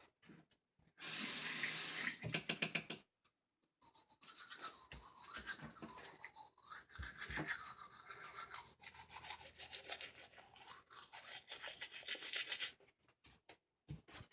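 Toothbrush scrubbing teeth: a louder burst of brushing about a second in, then a longer run of quick rasping strokes that stops shortly before the end.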